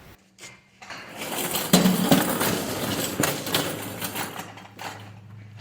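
Irregular knocks and metallic clinks of tools being handled, loudest around two seconds in, with a faint steady low hum setting in about four seconds in.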